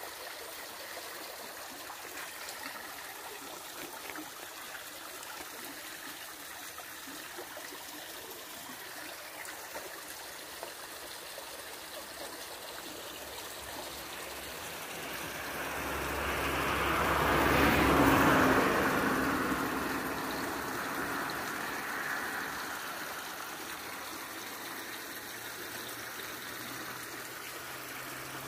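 Fast river water flowing over rocks, a steady rush. About halfway through it swells much louder for a few seconds, then settles back.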